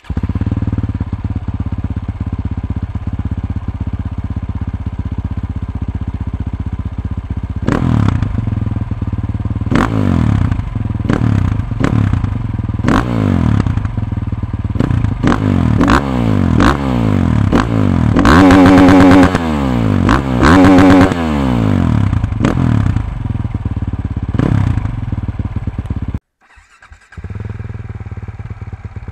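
Sherco SEF-R 450's single-cylinder four-stroke engine through a full Akrapovič exhaust with the dB killer removed: idling steadily, then from about eight seconds in a long run of sharp throttle blips, rising and falling. Twice it is held at high revs against the rev limiter, the loudest moments. Near the end the sound cuts out briefly and returns at idle.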